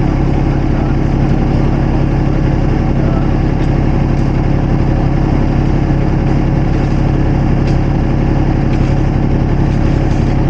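Engine of a compact construction machine (mini excavator or skid steer) running steadily at an even idle, with no revving.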